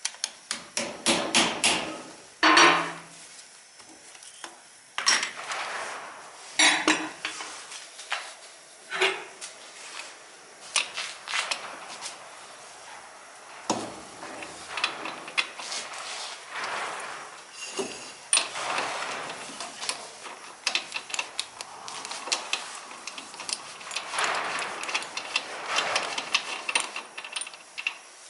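Metal tools and parts clanking, knocking and scraping irregularly, some knocks ringing briefly, as a car is worked on by hand.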